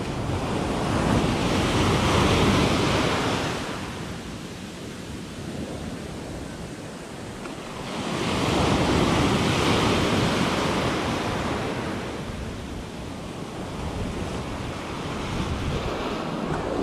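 Ocean surf breaking and washing up the beach, coming in slow surges: loud from about a second in, fading, then swelling again about eight seconds in and once more near the end.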